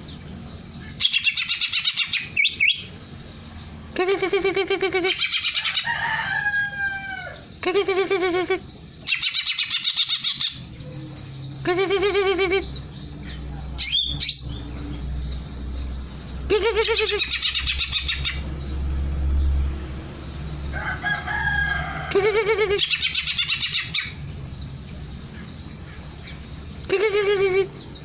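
Caged greater green leafbird (cucak hijau) calling: a series of short, loud, buzzy calls a couple of seconds apart, with a few curving whistled notes between them.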